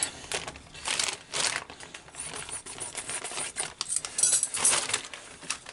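Scattered clicks and rustling as a new washing machine door latch is taken out of its packaging and handled.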